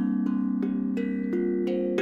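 Kalimba plucked in an even run of about three notes a second at shifting pitches, over a low steady ringing drone with a slow pulsing beat.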